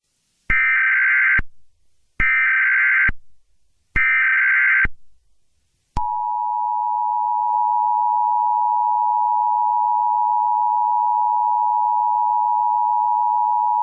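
Emergency Alert System SAME data header: three short buzzy bursts of warbling data tones about a second apart. About six seconds in, the steady two-tone EAS attention signal begins and holds.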